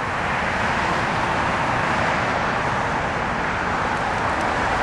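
Steady rushing outdoor noise with no distinct events, like passing road traffic or wind.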